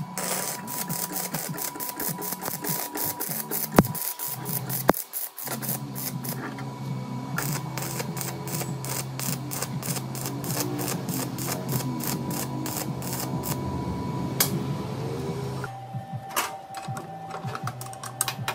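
Stick (arc) welder crackling and sputtering as the electrode welds steel, with a steady electrical hum underneath; the arc breaks off briefly about four seconds in, then strikes again and keeps crackling.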